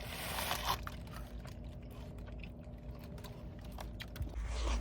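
Crunchy chips being bitten and chewed, with a burst of crunching at the start and scattered small crackles after, over a steady low hum in the room.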